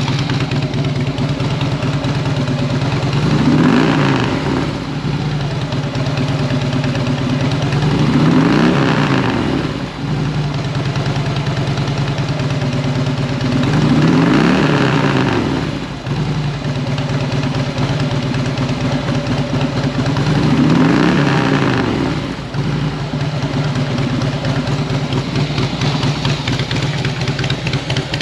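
Harley-Davidson V-twin idling through aftermarket fishtail exhaust pipes, blipped four times: each rev rises and falls back to idle within about a second and a half, spaced some five to six seconds apart.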